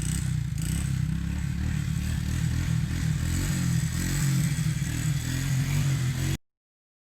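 1984 Honda 200ES single-cylinder engine running with a clattering rattle, which the owner puts down to a badly slack, slapping timing chain. The sound cuts off suddenly about six seconds in.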